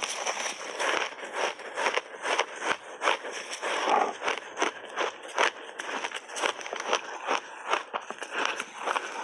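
Close-up chewing of a mouthful of crunchy purple frozen ice coated in matcha powder: quick, irregular crunches, several a second.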